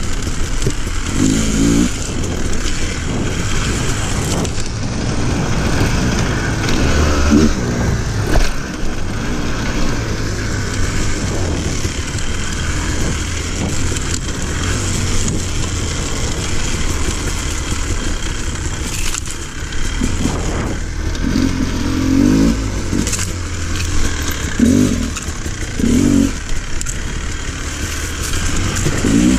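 Off-road motorcycle engine running under load on a dirt trail, the revs rising and dropping several times in short bursts.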